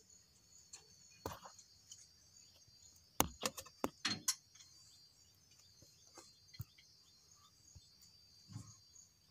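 A cluster of sharp clicks and knocks about three to four seconds in, with a few more scattered, over a faint steady high-pitched buzz.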